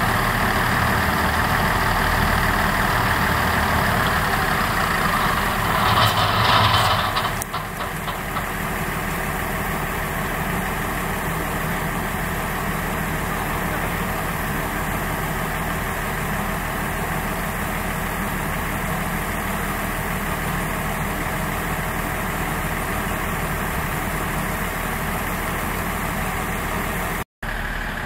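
Diesel railcar engines idling steadily, with a short burst of hissing noise about six seconds in.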